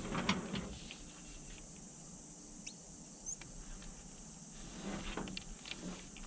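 Rustling and clicking of gloved hands working an antenna mast and its coax, loudest at the very start and again about five seconds in, over a steady high chorus of insects.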